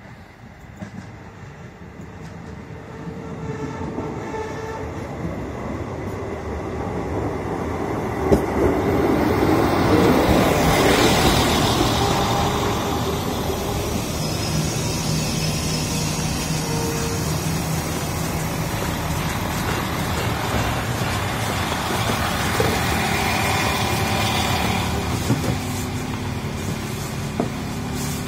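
PESA SA134 diesel railbus arriving at a station platform: its engine and wheels grow steadily louder as it approaches, peak as it comes alongside, then settle into a steady engine hum as it draws up and stands. A few knocks near the end.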